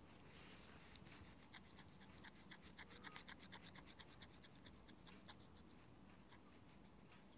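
Faint, rapid scratchy clicks of something rubbing back and forth across a phone's glass touchscreen, erasing handwriting. The clicks are densest in the middle and thin out near the end.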